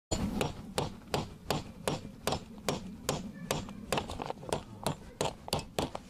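Hammer tapping on a cardboard square and plastic sheet to fasten them to a bamboo beehive frame: a steady run of quick, light strikes, about three a second.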